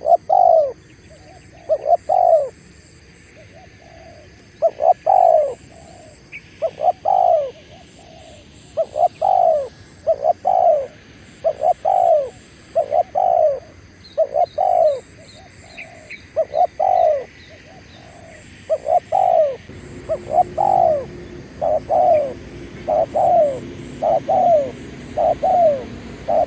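Spotted dove (tekukur) cooing loudly and repeatedly, one phrase about every second. A steady low engine-like hum comes in about three-quarters of the way through.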